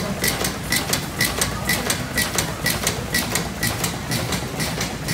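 Large stationary steam engine running, its valve gear clicking in an even rhythm of about four to five clicks a second over a low mechanical rumble.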